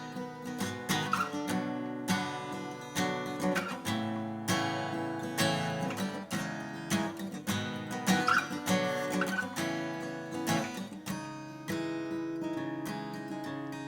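Martin CEO-7 acoustic guitar being strummed, chords ringing with frequent note attacks.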